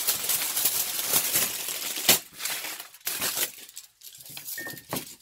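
Aluminium foil being crumpled and scrunched by hand into a ball: a dense crinkling that thins out into scattered crackles after about two seconds, with one sharper crack just before it thins.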